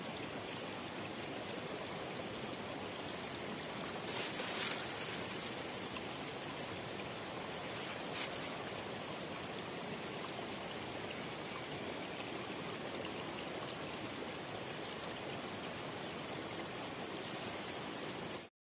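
Small shallow stream running steadily over rocks, a constant trickling wash. There are brief rustles about four seconds in and a single click near eight seconds. The sound cuts off abruptly near the end.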